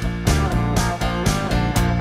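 Guitar-led band music with a steady beat of about two strokes a second.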